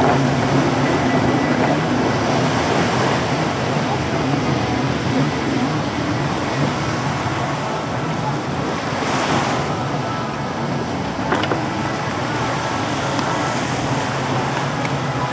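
Racing jet skis running at speed offshore, a steady engine drone mixed with surf and wind noise, with a brief louder swell of spray-like noise about two-thirds of the way in.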